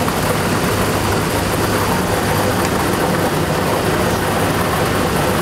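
Lottery draw machine's air blower running, a steady rush of air with a constant low hum, mixing the numbered balls in its clear chambers.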